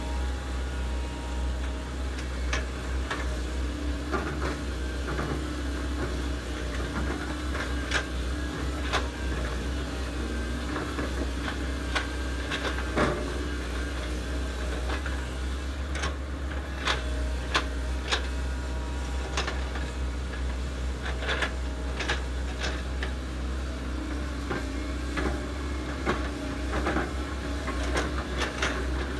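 Hydraulic excavators at work, led by a Komatsu PC130 swinging and digging: a steady diesel engine drone with frequent sharp knocks and clanks from bucket and boom linkage.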